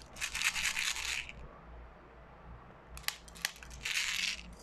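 BBs being loaded into an airsoft gas blowback pistol's magazine: a rattling, hissing rush of pellets lasting about a second, a few sharp clicks about three seconds in, then a second shorter rattling rush near the end.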